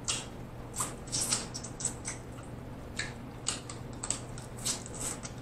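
Close-miked wet mouth sounds of someone eating snow crab meat: chewing and lip smacks as a string of short, irregular clicks.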